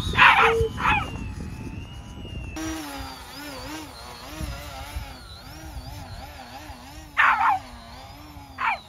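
A dog barking in two pairs of short barks, one pair at the start and one near the end. Between them a steady wavering whine runs in the background.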